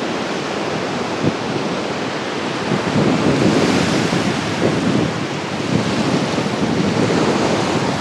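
Black Sea surf breaking and washing up a sandy beach, growing a little louder about three seconds in, with wind buffeting the microphone.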